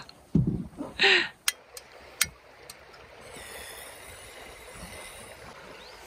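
Portable gas camping stove being lit: a few short bumps, three sharp igniter clicks about half a second apart, then the burner catching and hissing steadily.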